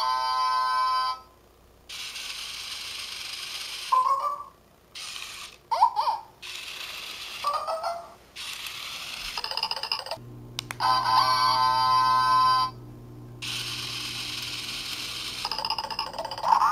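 Amazing Zhus toy pet walking by itself: short electronic jingles near the start and again about ten seconds in, and a few squeaky chirps, with a whirring motor between them as it runs.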